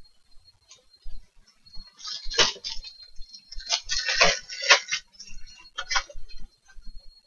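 Irregular clusters of short clicks and crackles, most of them between about two and five seconds in, with a faint steady high-pitched whine underneath.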